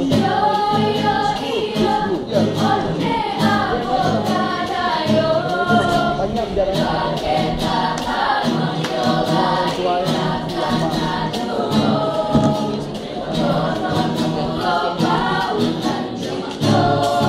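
Music: a group of voices singing together in chorus, with held, sustained notes.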